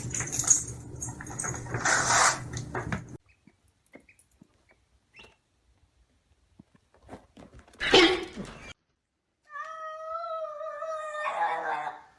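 Domestic cat giving a long, wavering, drawn-out meow near the end, about two and a half seconds long. It is preceded about eight seconds in by a short, loud noisy burst. Before that, unidentified noisy sounds over a low hum cut off about three seconds in.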